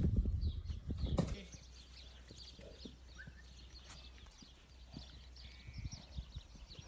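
Horses' hooves shuffling and thudding on a dirt yard, then, after a sudden drop in level about a second and a half in, a quiet stretch of faint bird chirps and a few soft hoof thuds as a dapple-grey horse walks on grass.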